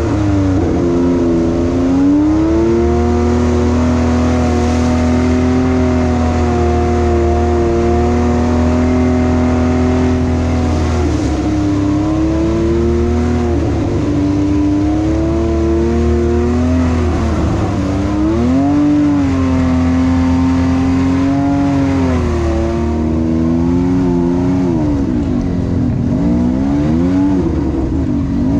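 ATV engine running under way, loud and close, holding a steady pitch for several seconds and then repeatedly dropping and rising as the throttle is eased and opened.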